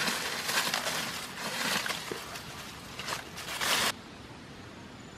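Dry banana leaves rustling and crackling in irregular bursts as they are pulled off and handled by hand. Near the end the sound cuts off sharply to a faint, steady background hiss.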